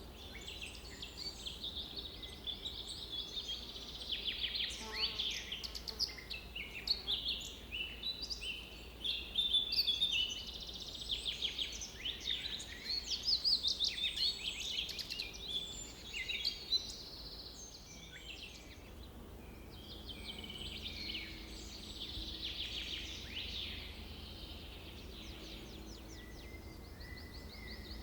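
Several birds singing and calling at once, a busy chorus of quick chirps and trills that thins out for a moment past the middle and then picks up again, over a faint steady low background hum.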